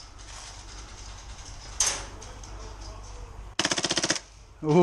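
Airsoft gun firing a short full-auto burst of rapid, evenly spaced shots lasting about half a second, near the end. A single sharp crack comes about two seconds in.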